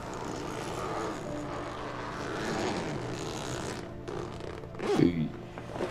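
Steady rumbling ambient drone from the TV episode's soundtrack, which cuts off about four seconds in. About a second later comes a brief voice sound falling in pitch.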